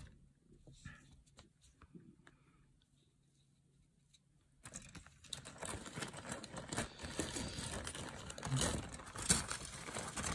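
A few faint clicks, then, about halfway in, a thin clear plastic parts bag crinkling steadily as the kit's plastic parts are handled in it.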